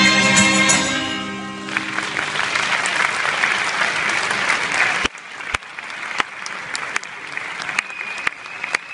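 The last held chord of a choir-and-guitar song dies away about a second and a half in as the audience breaks into loud applause. About five seconds in the applause thins suddenly to scattered individual claps.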